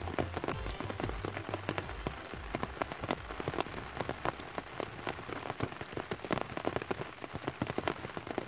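Rain falling, with many close raindrops hitting in a dense, irregular patter of sharp ticks.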